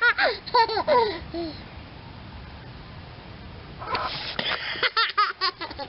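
A baby's high-pitched squeals and laughs in two short bouts, the second starting about four seconds in.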